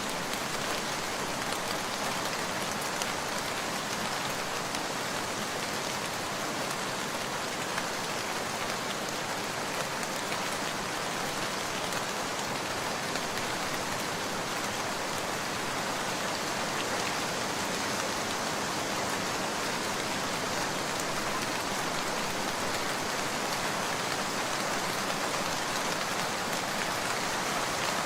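Heavy rain falling steadily, a dense, even hiss of countless drops pattering on surfaces.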